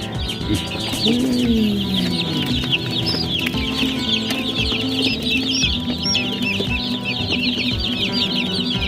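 A crowd of day-old broiler chicks peeping continuously, many short high cheeps overlapping.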